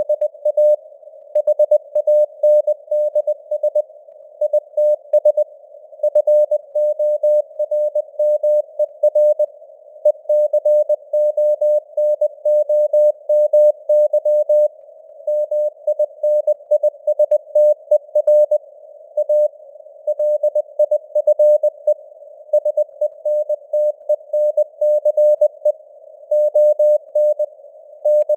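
Synthesized Morse code (CW) at 20 words per minute: a single steady beep keyed on and off in rapid dots and dashes, over a faint band of simulated radio noise. It is spelling out news headlines.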